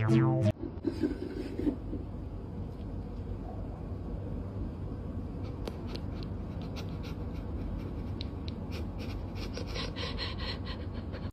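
Music cuts off about half a second in, then light rubbing and scraping with short clicks over a steady low hum, getting busier in the last couple of seconds.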